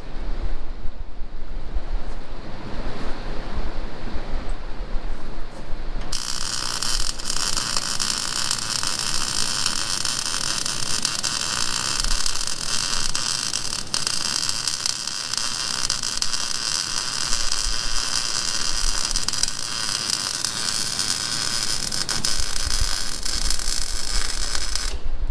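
A welding arc crackling and hissing steadily. It is struck about six seconds in and broken just before the end.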